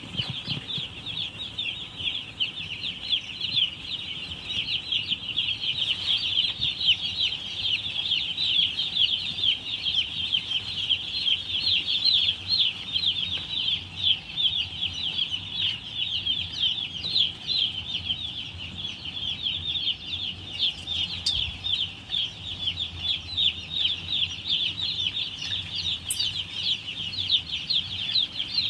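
Many young chicks peeping together without pause: a dense stream of short, high chirps, each falling in pitch, overlapping one another.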